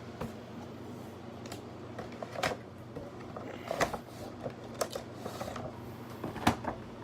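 Toy packaging being opened and handled: irregular clicks, crackles and crinkles of cardboard and plastic, with a few sharper snaps about two and a half, four and six and a half seconds in.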